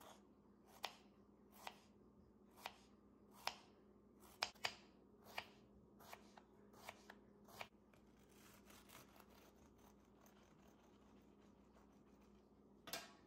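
Paring knife slicing strawberries on a bamboo cutting board: about ten sharp taps of the blade meeting the board, a little under one a second, stopping about three-quarters of the way through. Near the end, a short rasp as a serrated knife cuts into a baked shortcake.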